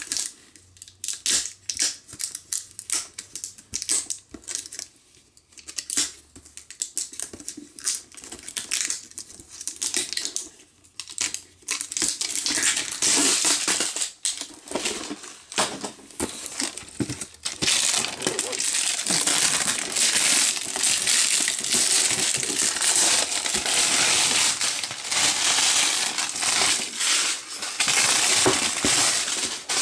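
A cardboard mystery box being cut open and its packaging handled: scattered clicks and crackles at first, then from about twelve seconds in a continuous crinkling of packaging being torn and crumpled, louder over the last twelve seconds.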